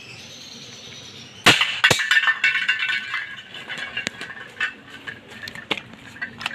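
An airsoft revolver fires a 6mm steel BB into a tin can about one and a half seconds in, a sharp crack, followed by a second click. The struck can then clatters across concrete in a long run of metallic clinks and rattles that dies away.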